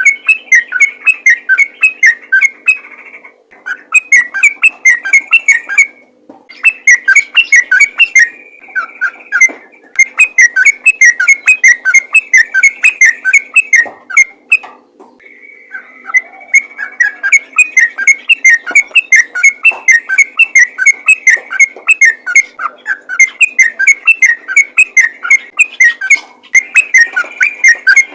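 Sooty-headed bulbul singing in long, rapid runs of loud whistled notes, about four a second, broken by a few short pauses: the chattering 'ropel' song that calls other bulbuls.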